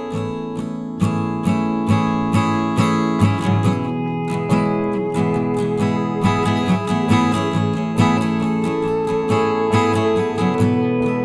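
Background music: strummed acoustic guitar with a steady beat, about two strokes a second.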